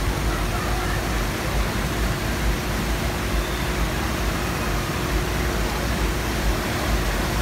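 Steady rushing of water flowing down the lanes of a multi-lane water slide, over a low rumble.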